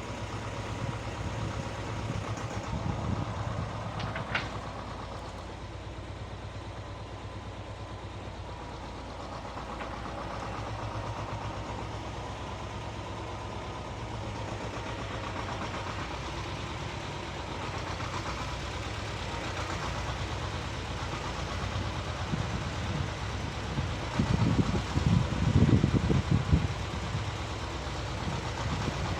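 Motor tiller engine running steadily as it churns soil, with a louder, rougher stretch about 24 to 27 seconds in.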